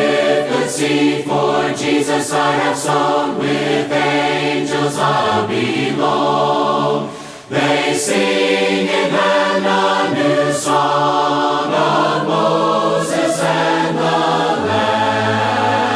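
Unaccompanied choir singing a hymn in several-part harmony, in long held phrases with a short breath between phrases about halfway through.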